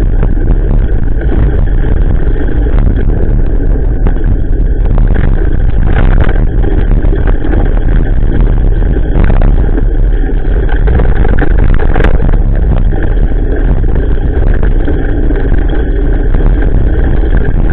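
Loud, steady wind rumble and trail rattle picked up by a bicycle-mounted action camera riding a wet dirt path, with a few sharp knocks from bumps about six, nine and twelve seconds in.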